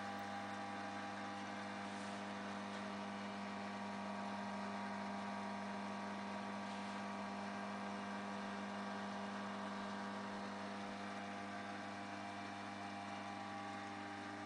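Steady electric hum of the lathe's motor running with the spindle clutch not yet engaged, with no cutting going on.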